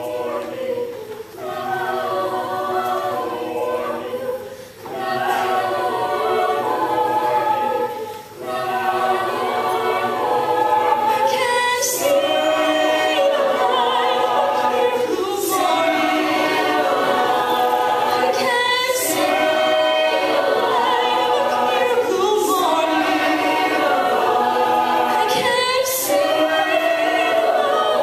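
Mixed-voice a cappella group singing in close harmony through handheld microphones, with no instruments. Their phrases break off briefly three times in the first eight seconds, then the singing runs on fuller, with a short sharp accent about every three and a half seconds.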